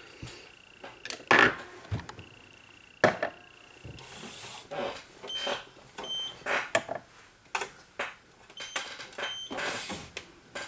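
Gel nail curing lamp: a thin high whine during the first few seconds, then a few short electronic beeps. Sharp clicks and knocks of small tools and bottles being handled sound throughout, the loudest of them in the first three seconds.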